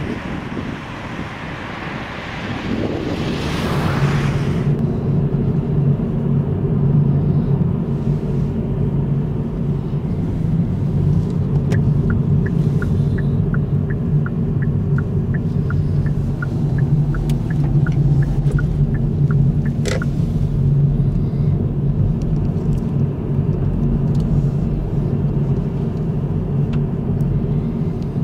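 Car engine and road noise heard from inside the cabin while driving, a steady low hum. About halfway through, the turn-signal indicator ticks about twice a second for several seconds, then stops with a click.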